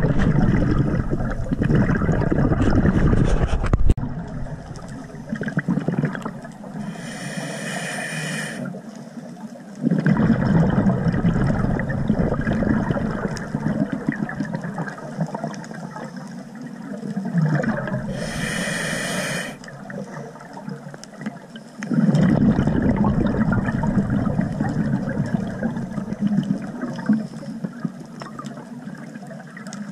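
Scuba diver breathing through a regulator underwater. Three long stretches of exhaled bubbles gurgling past the microphone, near the start, about ten seconds in and about twenty-two seconds in. Between them come two shorter, high hisses of inhalation through the regulator.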